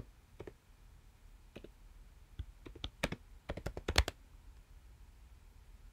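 Typing on a computer keyboard: a few scattered keystrokes, then a quick burst of clicks about three to four seconds in, the last one the loudest.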